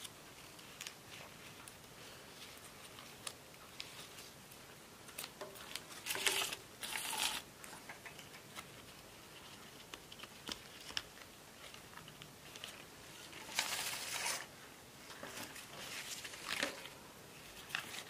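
Hands untying and unwrapping a cooked leaf-wrapped parcel: soft rustling and crinkling of the wilted leaves and their ties, with small clicks. Louder crinkling twice, about six seconds in and again around fourteen seconds.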